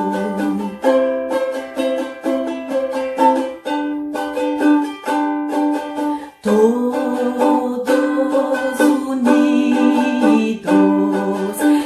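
Ukulele strummed, playing a hymn melody over changing chords.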